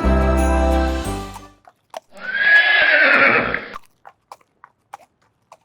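Christmas music ending about a second and a half in, then a horse whinnying once for about two seconds, followed by a few faint knocks.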